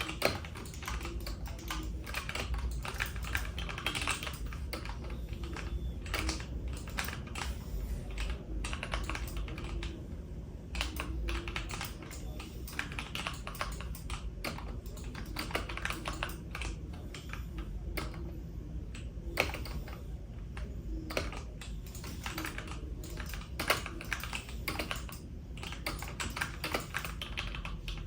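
Computer keyboard keys clicking in quick, irregular runs of keystrokes.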